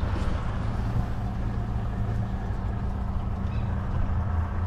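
Motorboat engine running steadily at low speed, a constant low hum.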